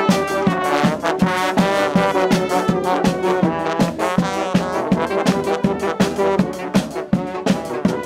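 Live brass street band playing an upbeat tune: trombones and trumpets lead over sousaphone and saxophone, driven by a quick, steady beat of snare and bass drum.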